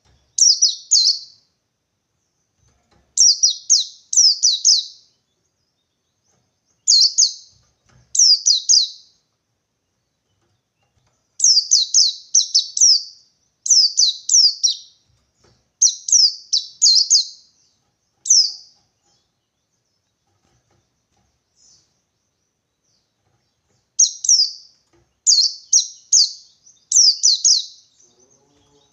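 White-eye (pleci) singing in quick groups of two or three short, high, falling notes, one group every second or two. The song stops for about five seconds in the middle, then picks up again.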